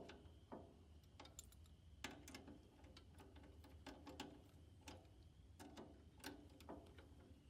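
Faint, irregular light metallic clicks and taps as the nuts are threaded onto a small U-bolt by hand, clamping the tractor's throttle cable, over a faint steady hum.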